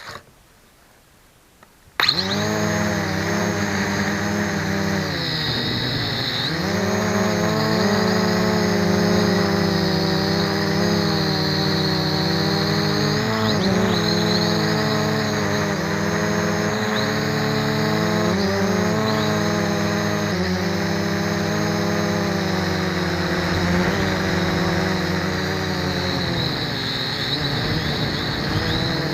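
MJX X400 V2 quadcopter's motors and propellers buzzing in flight, starting abruptly about two seconds in. The pitch rises and dips again and again as the throttle changes.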